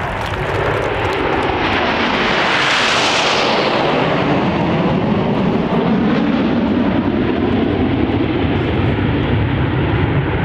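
Seven BAE Hawk T1 jets, with Rolls-Royce Turbomeca Adour turbofans, flying past overhead in close formation. The jet roar's high hiss peaks about three seconds in, then falls in pitch as the formation passes.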